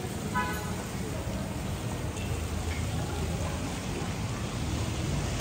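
Steady hiss-like background noise with a low rumble underneath, and a brief faint pitched call about half a second in.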